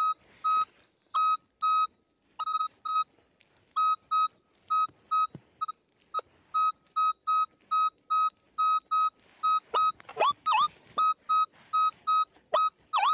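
Kvazar ARM metal detector beeping as its coil is swept back and forth over a buried metal target, with short, evenly spaced beeps about two a second. In the last few seconds the signal turns into short tones that slide up and down in pitch.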